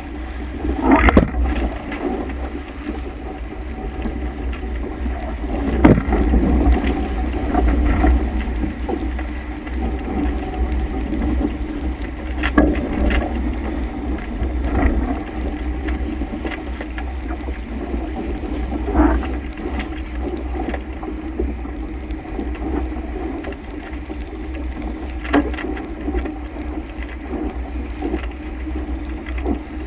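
Water rushing along the hull of a Laser Vago sailing dinghy under way, with wind buffeting the microphone. Several sharp slaps sound as waves and spray hit the bow, the loudest about a second in.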